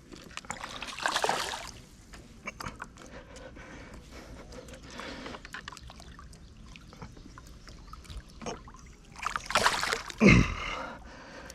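Water splashing and trickling in a few bursts, with the loudest splash and a heavy low thump near the end.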